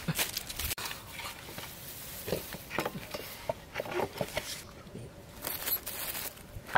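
Wooden boards and bamboo sticks clattering and scraping as they are handled and laid on the ground, a scatter of light knocks and rustles, with one sharp knock near the end.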